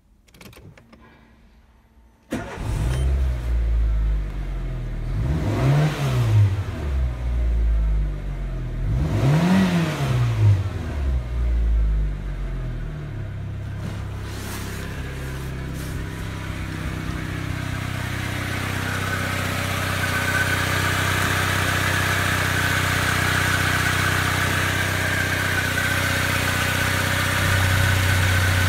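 Citroën Berlingo's 1.4-litre TU3JP (KFW) four-cylinder petrol engine starting about two seconds in. It is revved up and back down twice, then settles into a steady idle. Later it is heard close up in the engine bay with the oil filler cap off.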